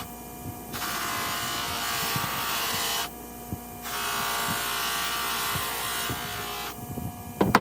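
Rotary abrasive power tool grinding rust off a steel pipe wrench, with a steady motor hum under a loud scouring noise. Twice the work is lifted off for under a second and only the motor is left running. A sharp click comes near the end.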